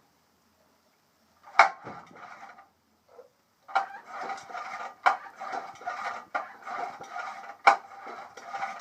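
Vintage Johnson 5.5 hp Sea Horse outboard being turned over by hand with its starter, giving several runs of metallic clattering, each opening with a sharp click, after a silent first second or so. The engine is being cycled to spread penetrating oil over the cylinder walls and rings of a long-seized motor.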